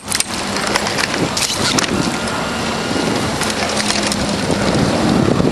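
Wind rumbling on the microphone over the steady low hum of a small outboard motor, with crackling splashes from a hooked barracuda thrashing at the surface, mostly in the first two seconds.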